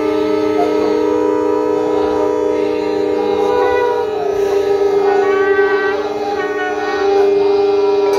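Many conch shells (shankh) blown together in a ritual shankhnaad, long held blasts at several different pitches overlapping into one continuous chord, with higher notes coming in and dropping out along the way.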